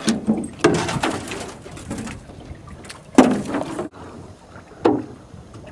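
A few separate knocks and crunching scrapes of broken ice against a small aluminium boat as it is pushed through the floes, the loudest about three seconds in.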